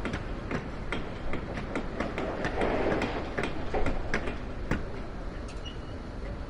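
Construction-site ambience: irregular sharp knocks and taps over a steady low rumble, with a swell of noise about two to three and a half seconds in.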